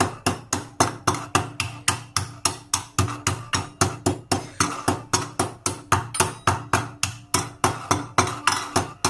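Steady pounding in a small bowl, about four strikes a second, crushing dry-roasted black cardamom seeds into a fine powder.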